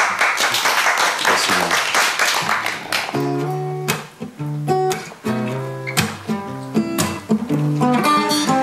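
Two acoustic guitars playing an improvised blues. The opening few seconds are dense, fast strumming; after that, separate picked notes and chords ring out more clearly.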